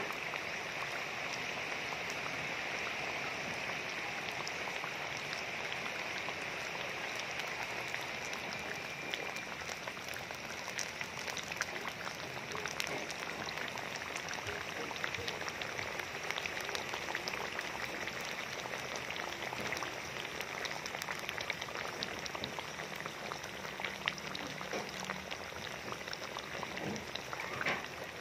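Battered banana slices (maruya) deep-frying in hot oil: a steady sizzle dotted with many small crackling pops.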